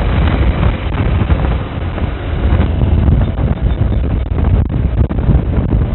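Wind buffeting the microphone of a phone recording from a moving vehicle: a loud, unsteady low rumble with road and vehicle noise underneath.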